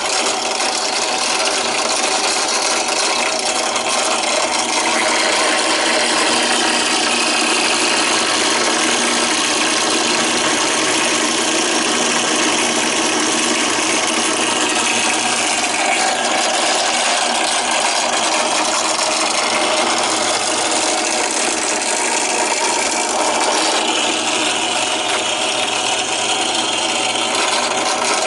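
Drill press running steadily with a steady motor hum, its bit grinding into the rivets of a die-cast Hot Wheels car to break the car open.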